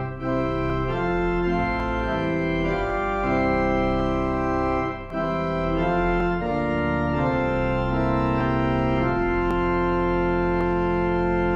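Organ playing a hymn accompaniment in slow sustained chords, moving chord by chord and settling on a long held final chord in the last few seconds.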